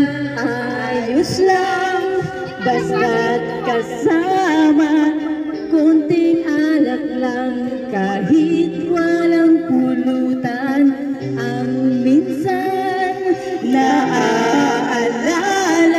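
Karaoke singing: a voice singing a melody into a handheld microphone over a videoke machine's backing music.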